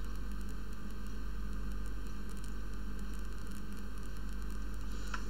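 Steady hiss with a low electrical hum underneath: the background noise of a home recording setup, with nothing else sounding.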